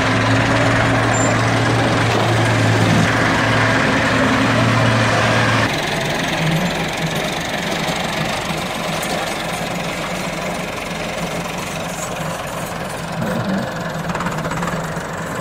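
Heavy diesel engine running steadily with a strong, even note. About six seconds in it cuts to a Massey Ferguson 385 tractor's diesel engine, quieter and lower in tone, pulling a trolley loaded with earth.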